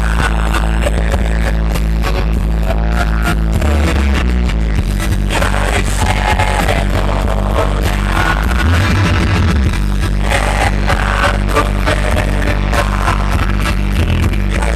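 Live rock band playing loud through a large concert sound system, bass-heavy, with a sung melody heard in places.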